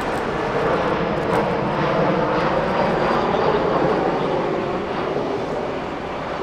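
Jet airliner engines running with a loud, steady roar that eases off slightly near the end.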